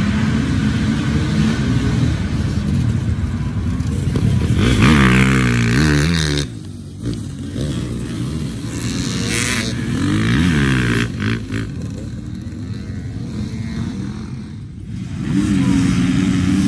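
Off-road dirt bike engines revving as riders accelerate past close by, the pitch sweeping up and then down as each bike passes, twice. Near the end a massed pack of dirt bikes runs at a steady, louder level.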